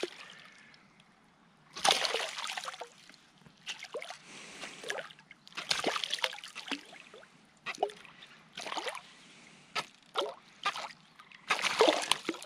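A hooked smallmouth bass thrashing at the surface as it is played in on a fly line, throwing up a series of irregular splashes a second or two apart.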